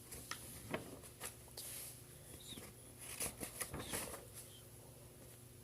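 Faint paper rustling and a few light clicks and taps: pages of an instruction booklet being leafed through while small parts are handled, over a low steady hum.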